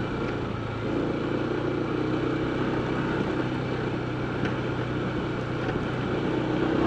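Honda ADV 160 scooter's single-cylinder engine running steadily while riding, a low even hum over a steady rush of noise.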